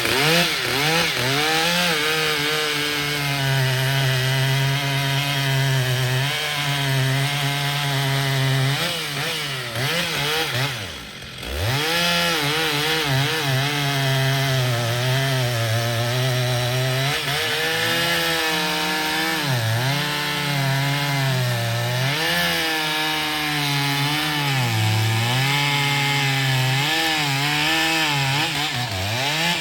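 Stihl two-stroke chainsaw cutting into wood, its engine pitch wavering up and down as it works under load. Partway through the engine drops off briefly, then revs back up and keeps cutting.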